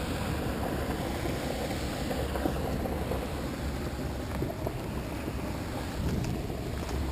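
Steady rushing noise of floodwater pouring from a drainage outfall pipe into the canal, mixed with wind on the microphone.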